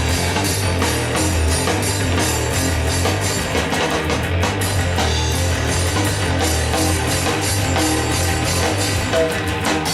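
Loud rock music: drum kit, bass and electric guitar playing together, stopping abruptly near the end.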